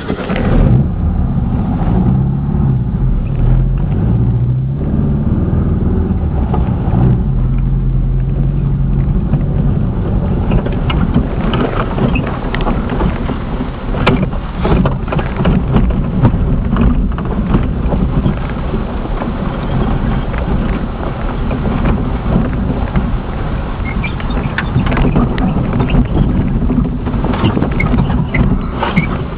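Volkswagen Baja Bug driving over a rough desert dirt track, heard from inside the cab. Its air-cooled flat-four engine runs continuously, its pitch shifting up and down in the first several seconds, while the body rattles and bangs repeatedly over the bumps.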